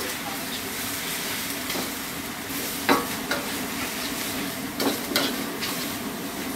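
Food frying with a steady sizzle, with about three short scrapes or knocks of a cooking utensil, near the middle and a little after.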